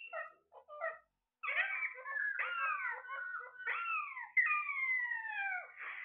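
Several Alexandrine parakeets calling: short choppy chirps for the first second or so, then a run of long downward-sliding calls, often two birds overlapping.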